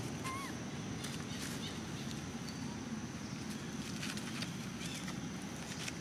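Dry leaf litter rustling and crackling in short bursts as macaques move over it, over a steady low background noise. A single short rising chirp sounds just after the start.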